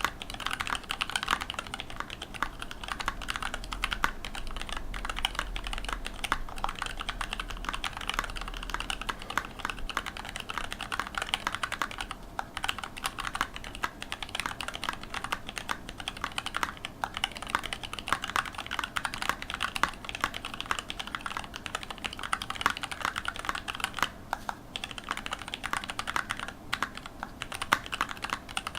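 Continuous typing on a custom mechanical keyboard with lubed TTC Black switches, a carbon fiber plate and PBT keycaps in a Tofu case: a rapid, steady stream of key clacks, with brief lulls twice.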